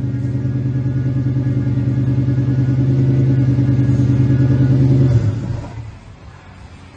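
2004 Pontiac GTO's 5.7-litre V8 running at a steady engine speed through its new long-tube-header dual exhaust, growing slightly louder, then falling away about five seconds in.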